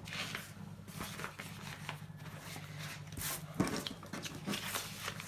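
Paper sticker sheets being handled and shuffled on a desk: scattered soft rustles and a few light taps, the sharpest about three and a half seconds in, over a steady low hum.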